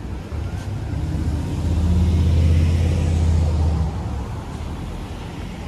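A motor vehicle driving past close by: a low engine rumble that swells over the first two seconds, is loudest around the middle with a light hiss on top, and fades after about four seconds.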